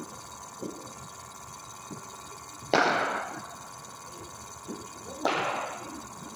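Two sharp cricket-ball impacts about two and a half seconds apart during bowling-machine practice, the first louder. Each has a short fading tail.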